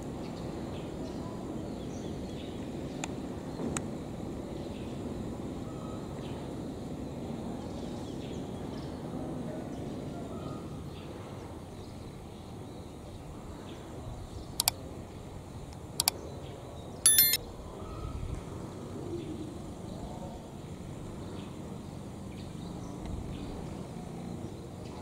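Steady low rumble of engines from a departing train and motorcycles idling at a level crossing, with faint bird chirps. About two-thirds of the way through come two sharp clicks, then a short, bright horn beep, the loudest sound.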